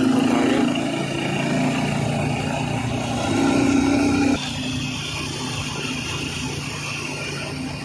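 Tricycle's motorcycle engine running under way, with road and wind noise. The engine note is strong for the first four seconds or so, then drops suddenly and carries on lower and steady.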